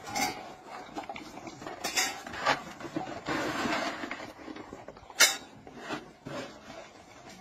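Metal dog bowls clinking and clattering as dog food is scooped from a bucket and tipped into them. There are a handful of sharp clanks, the loudest about five seconds in, and a short rustling pour a little after three seconds.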